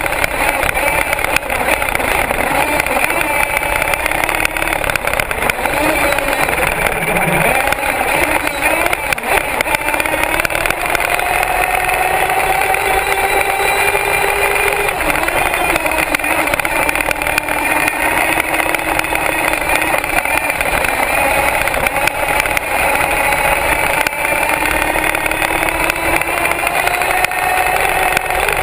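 HPI Savage radio-controlled monster truck's motor running continuously as it drives over grass, its pitch rising and falling with the throttle, heard from a camera mounted on the truck itself.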